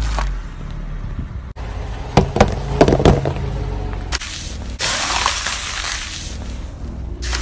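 Objects crushed under car tyres on asphalt: a quick run of sharp cracks and snaps about two seconds in, then a steady grainy crunching as the tyre grinds something brittle into crumbs.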